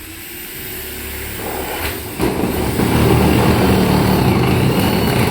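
A motor vehicle's engine running, growing louder over the first three seconds and then holding steady.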